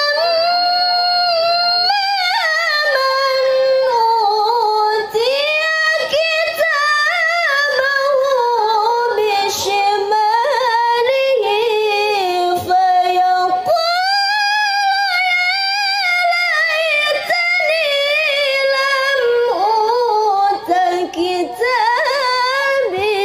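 A young woman's voice reciting the Qur'an in the melodic tilawah style into a microphone. It is one long, unbroken phrase of held, wavering notes with ornamented turns, ending shortly before the end.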